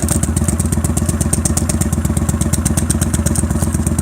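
Engine idling steadily through an exhaust fitted with a slip-in baffle, an even beat of about a dozen exhaust pulses a second. The bird-like tweeting from the exhaust is pretty much gone, leaving only a slight tick.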